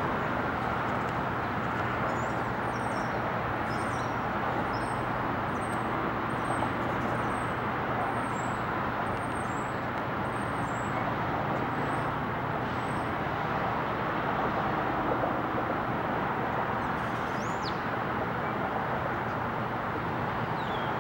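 Steady outdoor hum of distant city traffic, with a small bird chirping repeatedly, about one and a half short high chirps a second, over the first dozen seconds, and one high falling whistle later on.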